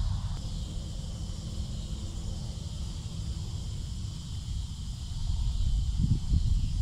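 Wind rumbling on the microphone, with a steady high hiss behind it. A few louder rustles and knocks come in near the end.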